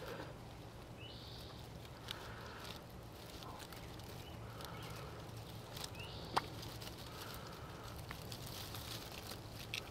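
Faint scrapes and small clicks of a screwdriver tip prying a rubber diaphragm loose inside a plastic Irritrol irrigation valve, with one sharper click about six seconds in.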